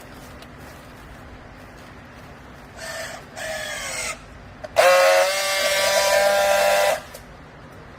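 Vertical downstroke baler running with a steady hum. Near the middle come two short whines that dip slightly in pitch, then a loud, steady, high-pitched whine lasting about two seconds that cuts off sharply.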